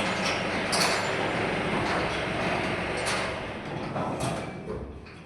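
A vehicle running, with a few sharp knocks; the noise fades away over the last couple of seconds.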